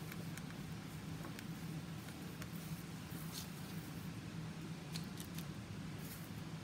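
Faint scattered ticks and light rustles of a cardboard paper towel roll and its paper base being handled and brushed with paint, over a steady low hum.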